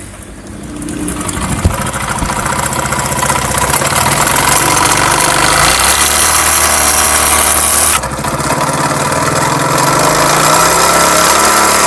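Honda CD70's single-cylinder four-stroke engine running with a loud mechanical noise, which the title puts down to the connecting rod. It builds up over the first couple of seconds with a sharp knock, and the sound changes abruptly about eight seconds in.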